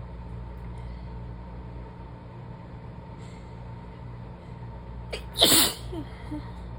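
A single sharp sneeze about five and a half seconds in, during a sneezing fit, with a few faint breathy voice sounds just after it. A steady low hum runs underneath.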